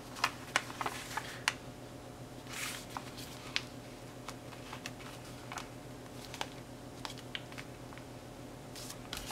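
A sheet of printer paper being handled and folded by hand: scattered light crinkles and taps with a few short rustles as the paper is slid into place and pressed flat. A faint steady hum lies underneath.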